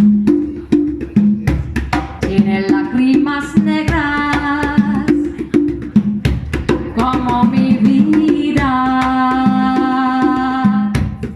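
Cuban rumba guaguancó played live: conga drums sound interlocking pitched tones under sharp stick or clave clicks, with singing over them. A long held note comes near the end, and then the music breaks off.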